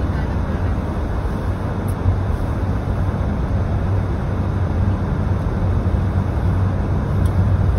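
Steady road and engine noise of a moving car, heard from inside the cabin: a low, even rumble with tyre hiss.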